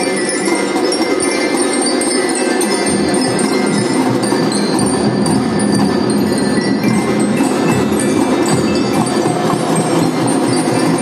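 Children's marching drum band playing: handheld glockenspiels (bell lyras) ring out a melody over snare and bass drums, with the drums coming in heavier about three seconds in.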